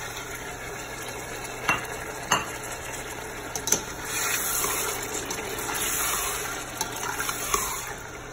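Raw bone-in chicken pieces sizzling as they fry in hot oil in a stainless steel pot, stirred with a metal spoon that clicks against the pot a few times. The sizzle grows louder about halfway through as the pieces are turned.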